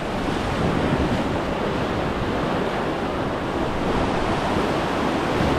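Whitewater river rushing steadily through rapids, with wind rumbling on the microphone.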